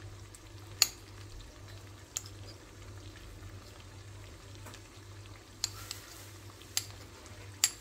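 A metal fork clicking and scraping against a small plate as cooked beef cubes are pulled apart, with about six sharp clinks spread over several seconds above a low steady hum.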